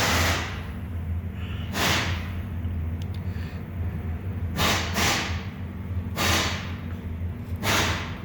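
Six short, sharp hissing or scraping bursts, each under half a second, over a steady low mechanical hum.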